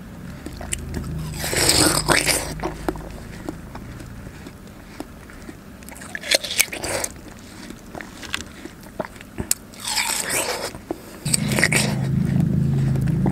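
Close-miked bites into juicy, chilled watermelon slices: crisp, wet crunches of the red flesh and rind edge, then chewing, several times about every four seconds. A low steady hum comes in near the end.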